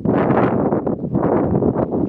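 Strong wind buffeting the microphone in loud, uneven gusts.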